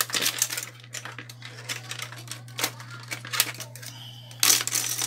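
Clicks and clatter of computer parts, including RAM modules, being picked up and set down on a workbench, with a denser rattle a little after four seconds in. A steady low hum runs underneath.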